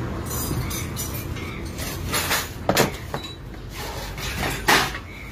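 Sharp metallic clinks and knocks of hand tools and engine parts being handled during scooter engine reassembly: two close together a little under three seconds in, and the loudest near the end.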